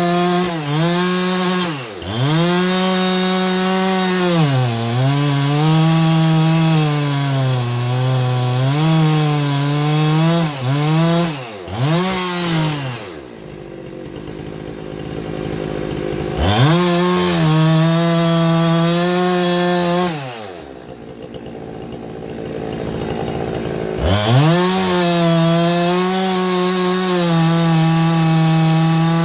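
A handheld electric power tool runs at high speed, its pitch sagging each time it bites into the pine and recovering as it is eased off. Twice it is switched off and spins down to a stop, then winds back up to speed.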